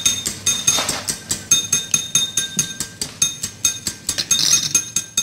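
Wire whisk beating a raw egg in a small glass bowl, the wires clinking against the glass in a fast, even rhythm of about five or six strokes a second, each clink with a short bright ring.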